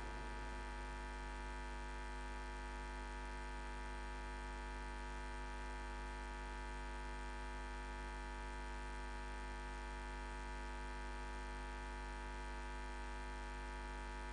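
Steady electrical mains hum with a stack of overtones, a low buzz with no other sound over it.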